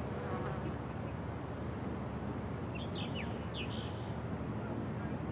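Steady outdoor background noise with an insect buzzing, and a few short, high chirps about three seconds in.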